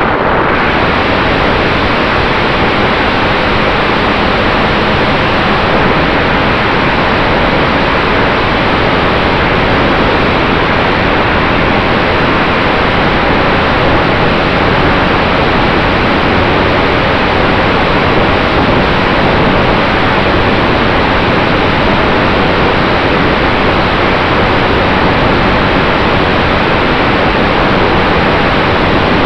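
Steady loud rush of wind and propeller noise picked up by a camera on a radio-controlled Top Flite P-51 Mustang model plane during a touch-and-go and flight. A faint steady motor tone runs underneath.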